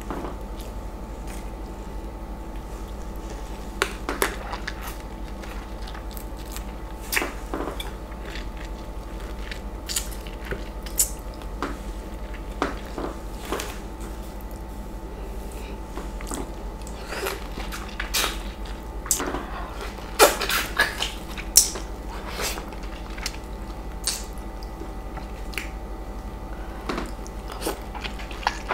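Close-up eating sounds of a ripe East Indian mango bitten into whole: scattered wet bites, clicks and squishes of the juicy flesh and skin at the mouth, with a faint steady hum underneath.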